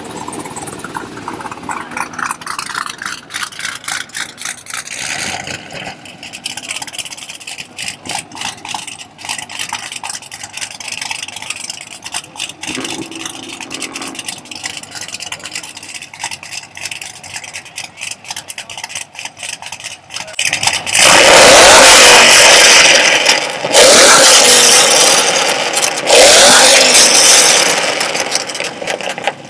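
Chevrolet Camaro SS V8 with a straight-pipe exhaust idling with a choppy, uneven beat, then revved hard three times near the end, each rev held for two to three seconds and very loud.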